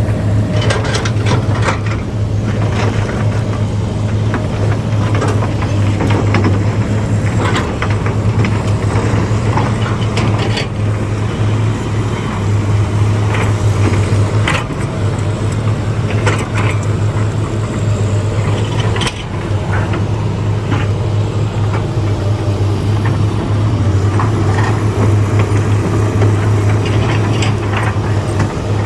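Komatsu bulldozer's diesel engine running steadily under load with a deep hum, mixed with frequent short clanks and knocks.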